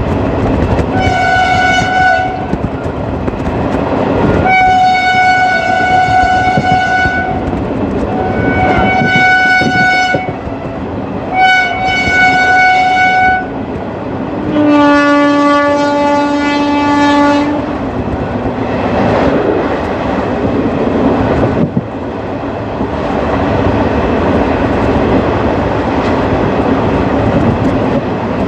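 WAP4 electric locomotive's horn sounding four high-pitched blasts, then one longer, lower-pitched blast, over the steady running noise and clickety-clack of ICF coaches on the track. After the horn stops, about two thirds of the way through, the track noise carries on alone.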